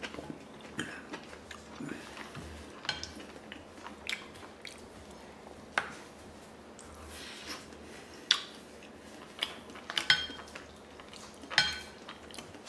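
Close-up eating sounds: chewing, with a spoon knocking and scraping against a ceramic bowl in sharp clicks now and then, a few of them ringing briefly.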